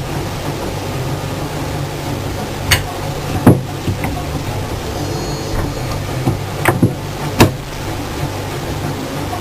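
Steady low machine hum with several sharp knocks, one near 3 s, one near 3.5 s and a cluster of three near 7 s.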